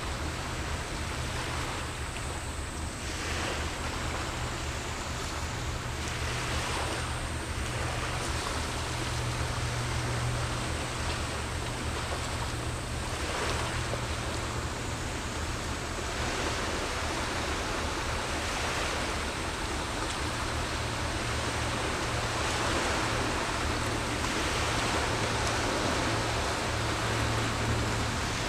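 Small waves washing against the shore, swelling and easing every few seconds, over a steady low hum.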